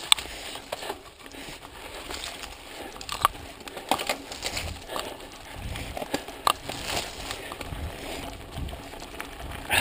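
Mountain bike descending a rough dirt singletrack at speed: tyres crunching over dirt and leaves, with frequent irregular sharp clacks and rattles from the bike over the bumps.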